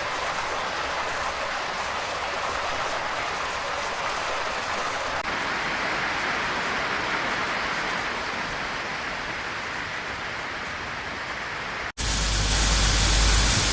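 Steady rushing sound of water with no pitch or rhythm. About 12 seconds in it cuts abruptly to a louder, fuller rush with more low rumble.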